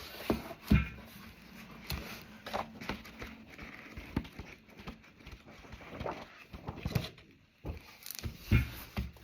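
A large, heavy hardback book being handled and leafed through: pages rustling and turning, with irregular soft knocks and thumps, the firmest about a second in and near the end.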